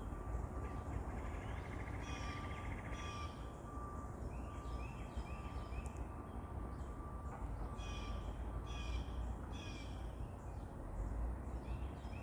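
Birds calling outdoors, many short harsh calls repeated in quick runs, some falling in pitch, over a steady low rumble of background noise.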